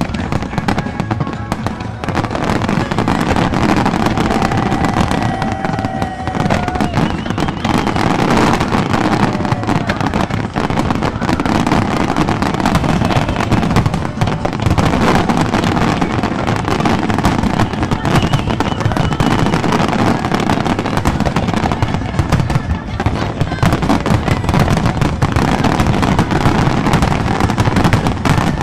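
Aerial firework shells bursting in dense, rapid succession without a break, many reports overlapping, growing a little louder after the first few seconds.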